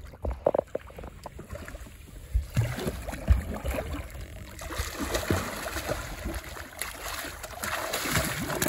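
A hooked paddlefish thrashing at the surface beside a boat, splashing water, with the splashing building toward the end. A few dull knocks in the first few seconds.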